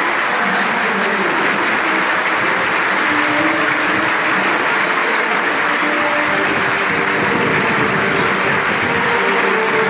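Large crowd applauding steadily, a dense even clapping that holds at one level throughout.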